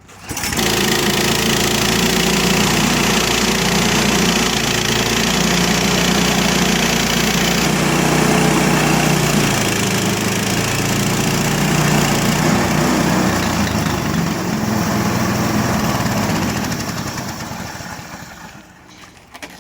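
Harbor Freight portable bandsaw sawmill running under load, its gas engine working steadily while the band blade cuts through a green, wet elm log. The sound starts abruptly and dies away over the last couple of seconds.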